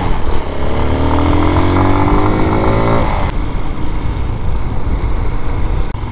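Vitacci Bashan BSR Raven 250 motorcycle engine pulling under acceleration, its pitch rising steadily for about three seconds, then dropping back to a lower drone as the throttle eases, with wind rumbling on the microphone.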